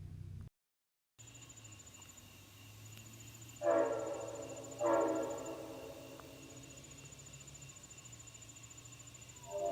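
Diesel locomotive horn sounding two short blasts a little over a third of the way in. A long, louder blast starts near the end. Crickets chirp steadily in the background.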